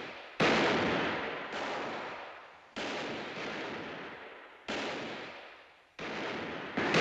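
Gunshots in a gunfight: about six shots at uneven intervals, each ringing out in an echo that fades before the next. The first, about half a second in, is the loudest.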